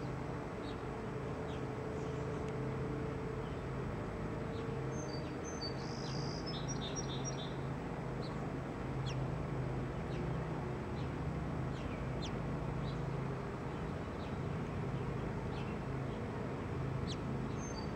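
Small birds chirping, with short high notes scattered throughout and a brief run of song notes about five to seven seconds in, over a steady low hum.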